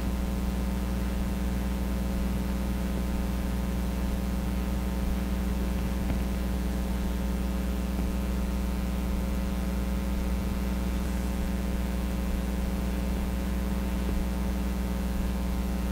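Steady electrical mains hum: a low, even buzz with many evenly spaced overtones.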